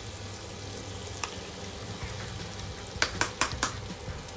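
Butter melting in a saucepan, sizzling with a steady low frying hiss, with a quick run of four sharp clicks about three seconds in.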